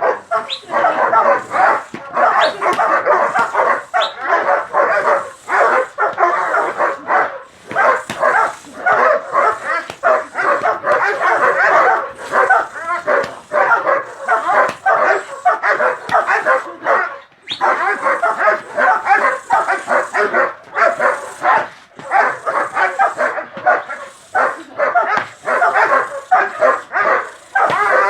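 Guard dog barking in rapid, near-continuous volleys, with only brief pauses.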